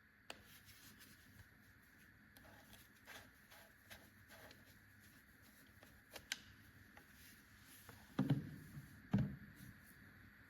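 Faint scattered clicks and taps, then two louder dull thumps about a second apart near the end, over a faint steady hum.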